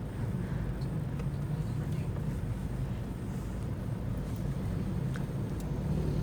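Steady low drone of a Toyota Fortuner's 2KD-FTV four-cylinder turbodiesel and tyre noise heard from inside the cabin while driving, with a few faint clicks.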